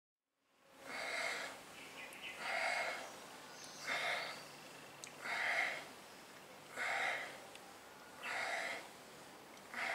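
Rhythmic heavy breathing close to the microphone: seven loud, noisy breaths about a second and a half apart, starting just after a short silent gap.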